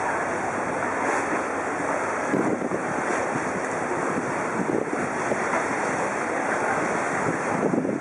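Flood-swollen river water sloshing and lapping against the pier, with wind buffeting the microphone.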